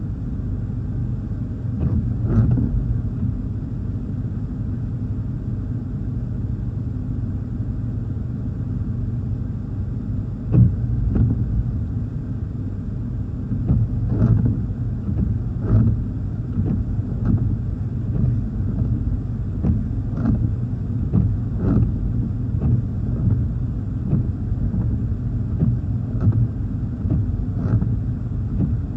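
Steady low rumble of gusty wind and rain against a car, with the windshield wipers sweeping across the glass: short knocks, often in pairs about a second and a half apart.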